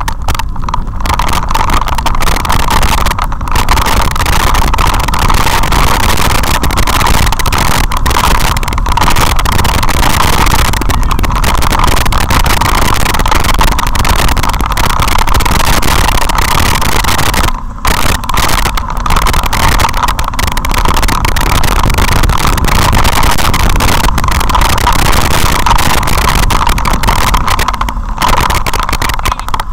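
Loud, steady rush of wind and rolling rattle on the microphone of a camera riding a mountain bike fast down a gravel track, with a steady mid-pitched hum running through it. It dips briefly a little past halfway.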